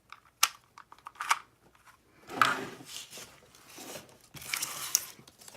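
Packaging being handled: two sharp clicks in the first second or so, then two stretches of rustling, crinkling noise.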